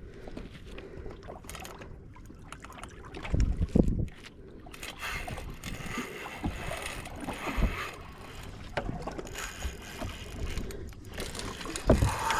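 Water moving against a small boat's hull, with dull knocks about three and a half seconds in and again near the end.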